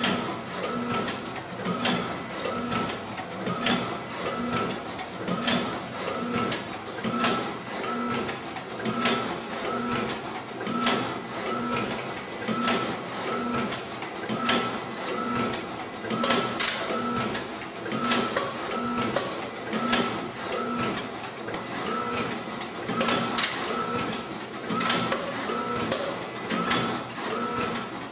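Suzumo CSS-MSA nigiri rice-ball machine running in production, a steady mechanical rhythm of short whirring strokes about one and a half times a second, with scattered clicks.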